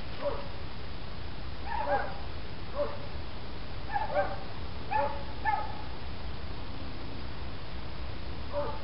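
A dog yelping and barking: about eight short calls, each falling in pitch, at irregular intervals over a steady low rumble.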